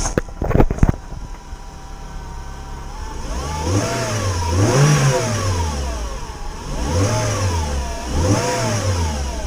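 Renault Clio 200's 2.0-litre four-cylinder engine revved three times, with a whine that rises and falls with the revs and makes it sound supercharged: the owner puts it down to a failing alternator bearing. A few sharp knocks come in the first second.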